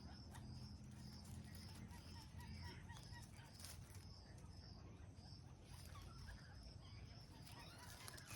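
Faint insect chirping, with short high chirps repeating evenly a little more than twice a second, and a few soft, scattered bird chirps.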